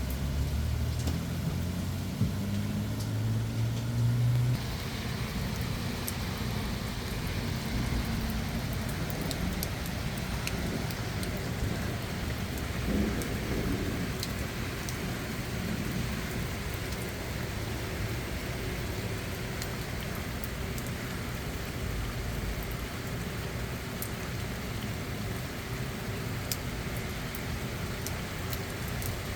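Steady rain falling, with scattered sharp drop ticks over the hiss and a low rumble underneath. A low droning hum runs for the first four seconds or so and stops, and the rain hiss grows louder at the same moment.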